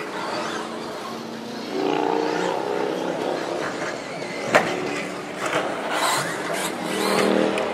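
Electric radio-controlled stadium trucks racing on a dirt track, their motors and gears whining as they pass, with one sharp knock about four and a half seconds in.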